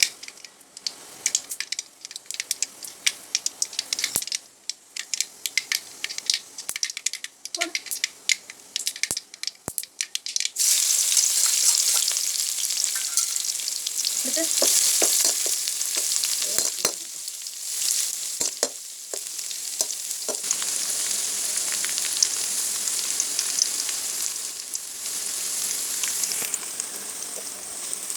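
Hot oil crackling with scattered sharp pops. About ten seconds in, a loud steady sizzle starts suddenly as more food goes into the oil for deep-frying mixture snack, with a few knocks of a utensil.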